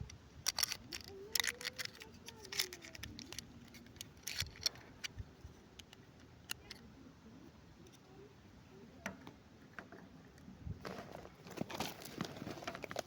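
Hands handling small plastic toys and their packaging: scattered light clicks and taps, then a denser spell of crinkling and clicking about eleven seconds in.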